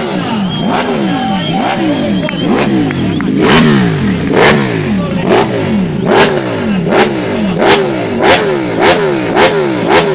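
Ducati superbike engine revved over and over in short throttle blips, each rev climbing and dropping back, a little more than one a second. From about a third of the way in, each blip ends in a sharp crack.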